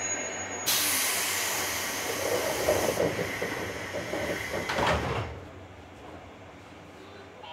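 Air hissing out of a JR West 201 series train's pneumatic door engines as the sliding doors close, ending in a knock as they shut, about five seconds in.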